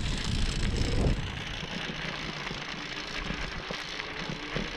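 Nanrobot Lightning electric scooter ridden over bumpy grass: a steady, rattling rush of tyre and frame vibration. It is heaviest and lowest in about the first second, then eases off.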